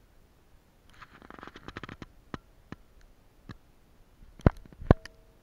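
Crackling and rustling in dry leaf litter and twigs, with scattered clicks, then two sharp knocks close together near the end, the loudest sounds.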